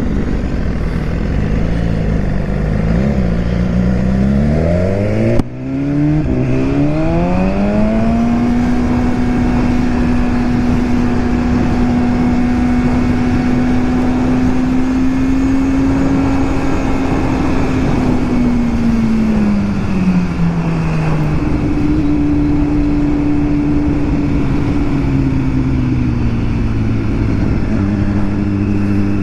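Sport bike engine under the rider, accelerating with its pitch rising over a few seconds and a brief break about five seconds in, then holding a steady speed before easing off around eighteen seconds in and running on at a lower pitch.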